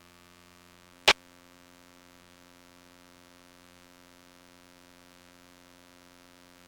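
Aircraft intercom and radio feed, recorded through a direct audio cable, giving a faint steady electrical hum with no voices. A single sharp click comes about a second in.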